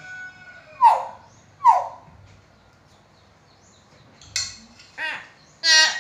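Hill myna calling. There are two loud, sharp calls that slide downward, about a second in and just under a second apart, then three shorter ringing calls near the end, the last one the loudest.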